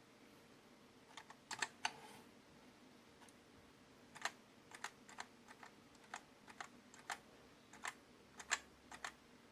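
Keys on an XMIT Hall effect keyboard being pressed one at a time, irregular single clicks: a few near the start, a pause, then a longer uneven run of presses.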